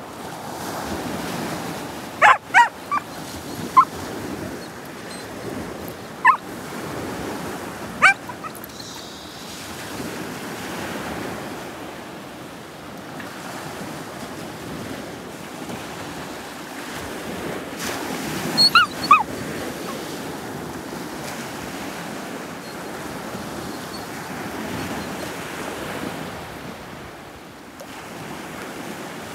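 Gulf surf washing in and out on the beach in a steady rush. A dog barks over it in short, high yelps, a cluster of four or five near the start, two more a few seconds later, and a last pair past the middle.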